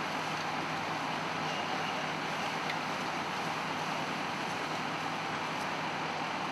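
Steady, even rushing noise with a faint low hum underneath and no distinct events.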